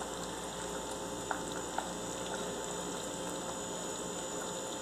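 Fish moqueca stew bubbling and sizzling steadily in a clay pot with the burner off, still boiling on the heat the clay holds. Two faint ticks come a little after one second and just before two seconds in.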